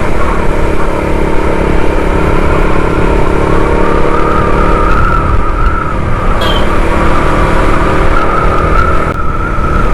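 Motorcycle engine running steadily while riding, with heavy wind rumble on the microphone. A brief high tone sounds about six and a half seconds in.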